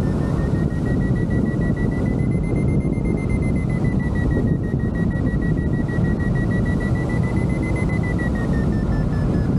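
Hang glider variometer sounding its lift tone, a thin high tone over the loud rush of wind on the microphone. Its pitch rises a little twice and drops near the end, signalling the glider climbing in lift.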